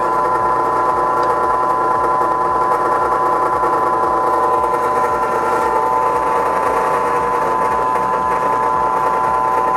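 Motor of a WEN 4214T benchtop drill press running free with the chuck spinning and no bit cutting, a steady whine.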